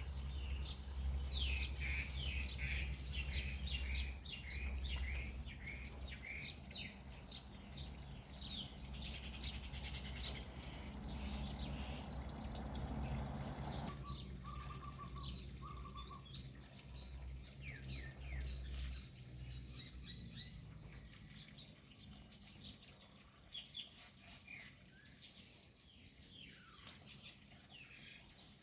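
Small birds chirping repeatedly. Under them is a low steady rumble with a rushing noise that cuts off suddenly about halfway through; the rumble fades soon after, leaving the chirps.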